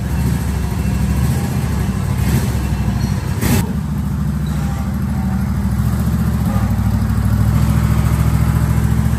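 Riding lawn mower's small engine running steadily while the rover drives, with two brief knocks about two and three and a half seconds in; it gets a little louder near the end.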